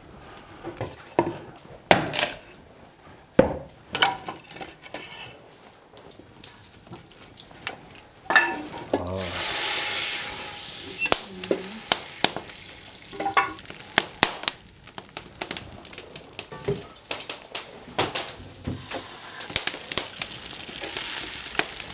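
Butter sizzling in a pot hung over an open wood fire, with scattered clicks and knocks from the fire and the pot. The sizzling swells into a louder hiss about nine seconds in, and again more faintly near the end.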